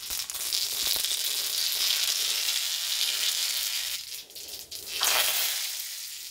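Mustard seeds sizzling and crackling in hot oil in a kadhai, a dense high hiss with fine popping. About five seconds in there is a fresh, louder burst of sizzling, which then dies down.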